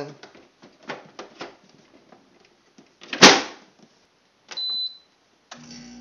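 Plastic water basin slid into a Frigidaire 25-pint portable dehumidifier with small clicks, then a loud knock as it seats about three seconds in. A short electronic beep follows, and near the end the dehumidifier's fan and compressor start up with a steady hum.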